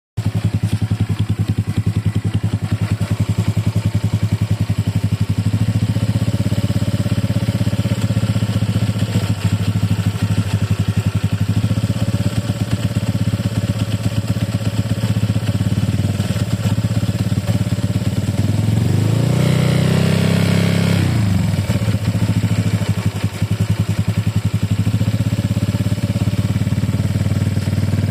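Honda Click 150i scooter's single-cylinder engine idling steadily, blipped once about two-thirds of the way through, rising and then falling back to idle. It runs with the abnormal noise that is treated as a problem.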